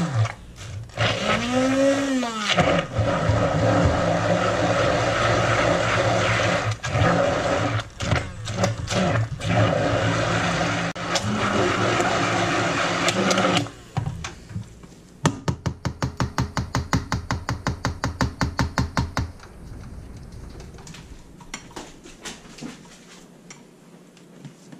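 Handheld stick blender running in thick hot-process soap batter, mixing in grated bar soap. Its pitch rises and falls once near the start, and it stops after about 13 seconds. A quick run of light ticks, about five a second, follows for a few seconds.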